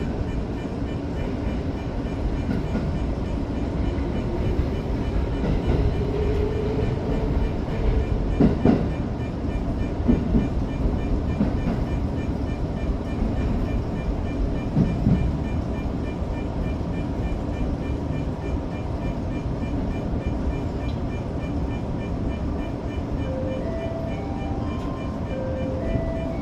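Tokyo Metro 05 series train heard from inside the carriage, its running rumble steady, with a few heavy clunks between about 8 and 15 seconds in. Near the end comes a short run of chime-like tones stepping in pitch.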